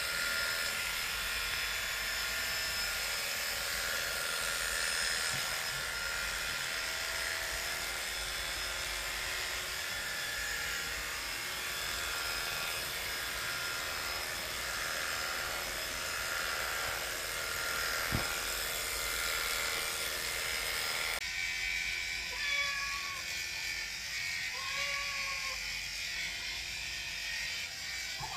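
Electric pet hair clippers running steadily, a continuous buzz as they shave a cat's coat.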